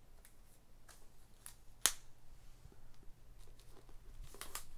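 A large hardcover photobook and its cardboard box being handled: scattered light taps and paper scrapes, one sharper click about two seconds in, and rustling that builds near the end.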